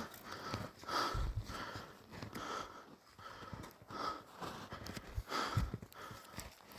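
A person breathing hard, a breath about every second, as if labouring in the cold.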